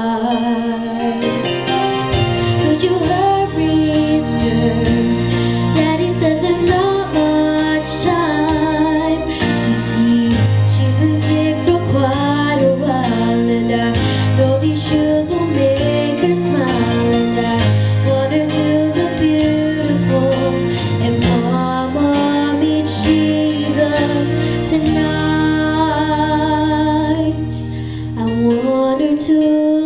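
A young girl singing a slow song into a microphone over instrumental accompaniment with low bass notes; the accompaniment drops out briefly near the end.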